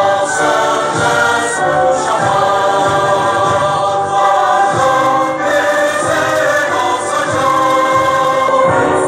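A choir of many voices sings a slow, sustained melody, with instrumental backing.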